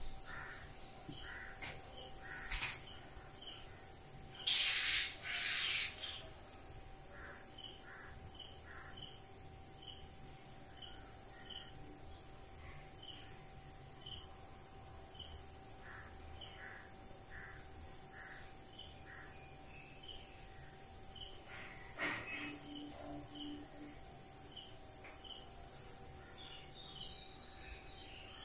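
Crickets chirring steadily in a high, unbroken tone, with small bird-like chirps repeating through it. Twice, about five seconds in, a loud harsh rasp cuts in briefly.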